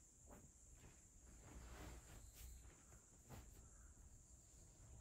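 Near silence: room tone with a faint steady high-pitched hiss and a few soft ticks.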